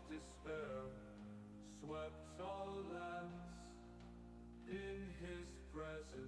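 Quiet background music: soft, sustained instrumental notes in slow phrases.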